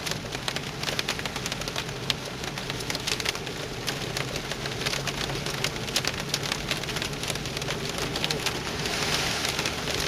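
Hail and rain pelting down: many sharp, irregular ticks of hailstones striking over a steady hiss of rain, with a low steady hum underneath.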